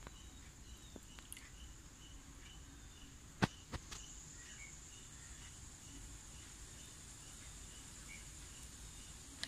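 Faint background insect chirping: a steady high trill with a regular chirp about three times a second. Two sharp clicks come about three and a half seconds in.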